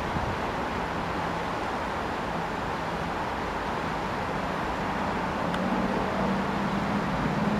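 Steady rushing road traffic noise, with a motor vehicle's engine hum growing louder and rising slightly in pitch in the second half as it approaches.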